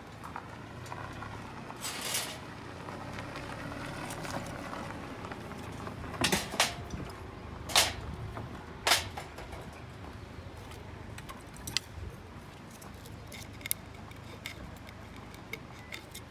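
A few sharp knocks and clatters of objects being handled. The loudest come between about six and nine seconds in, with lighter taps later, over a faint steady outdoor background.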